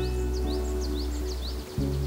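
Background music of sustained chords, with a bird chirping over it in a quick series of short, high, rising notes, several a second.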